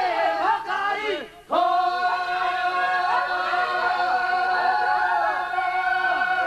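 A crowd of men shouting and calling, then, after a brief drop about a second and a half in, one steady musical note held unbroken for several seconds while voices keep calling over it.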